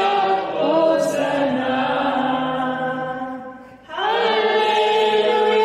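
Several voices singing long held notes together, choir-like and without a beat; the sound fades out and a new held chord begins about four seconds in.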